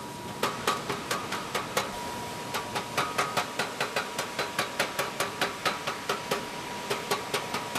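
Small hammer tapping rapidly on the copper tube ends of heat exchanger cores, about four sharp strikes a second, fitting parts onto them. A faint steady high tone hums behind it for most of the stretch.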